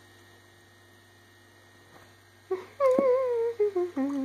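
A person humming a short descending tune, several notes with a wavering pitch, starting about two and a half seconds in, over a faint steady electrical hum.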